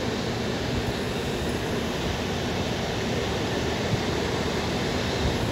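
Steady, even background noise of an indoor exhibit hall, without distinct events.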